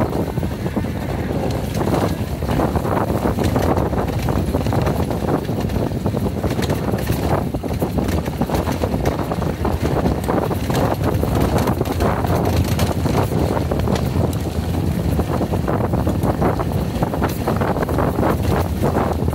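Yamaha XG250's single-cylinder engine running at low trail speed on a rough dirt track, under wind buffeting the microphone and frequent small knocks from the ride.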